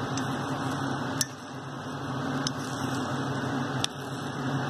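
A steady low hum runs throughout, broken by three sharp clicks spaced about a second and a half apart.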